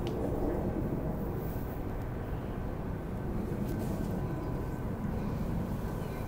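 Steady low rumble of distant vehicles, with a faint steady whine above it and no distinct events.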